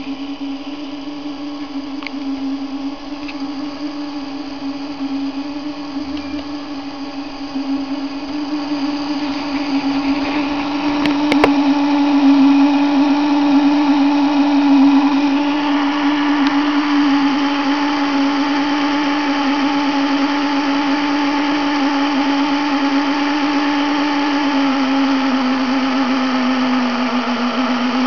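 Small electric drive motor of an H0-scale model Twister fairground ride, running with a steady hum. It grows louder about eight seconds in and drops slightly in pitch near the end.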